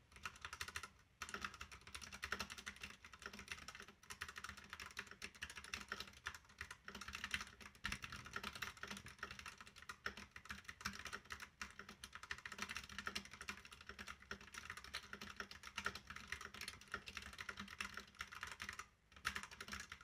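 Fast touch-typing on a Ractous RTK63B compact mechanical keyboard with red switches: a rapid, continuous patter of quiet keystrokes, with a brief pause about a second in and another near the end.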